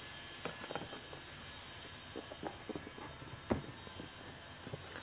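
A cardboard power-tool box being handled on a workbench: scattered light taps, scrapes and knocks, with one sharper click about three and a half seconds in.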